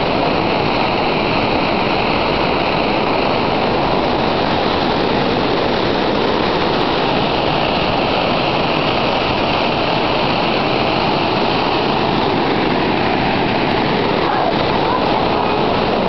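Waterfall pouring onto rocks close by: a loud, steady rush of falling water that does not let up.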